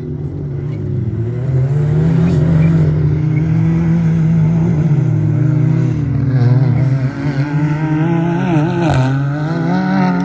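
Engines of several racing UTVs running hard, their pitch rising and falling as they accelerate and ease off.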